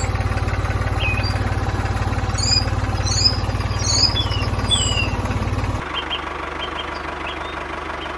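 Tractor engine running at an even, low chug, dropping to a quieter hum about six seconds in, with short high chirps over it.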